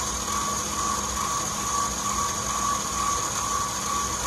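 Stand mixer running steadily, its paddle beating choux pastry dough to work in an added egg yolk, with an even motor whine.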